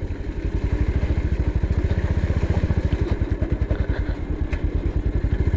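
Motorcycle engine running at low revs as the bike is ridden slowly over a slippery mud track, its exhaust beating in a steady, rapid pulse.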